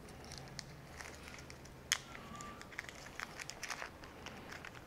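Small metal bolts handled in the fingers and started by hand into a gimbal cage slider: scattered light clicks and faint crinkling, with one sharper click about two seconds in and a brief squeak right after it.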